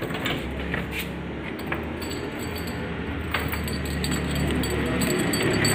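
A scatter of light metallic clicks and clinks over a steady low hum that stops about five seconds in.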